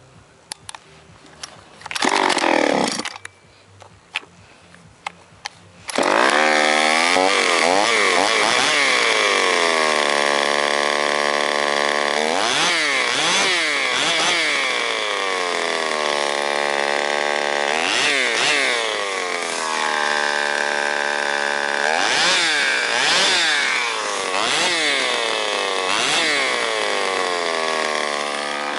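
Shindaiwa E1036S chainsaw engine. After a few light clicks and a short loud burst about two seconds in, it starts about six seconds in and keeps running, revved up and dropping back several times.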